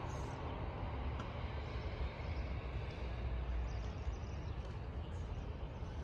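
Wind buffeting the microphone in a steady low rumble, over a soft, even outdoor hiss.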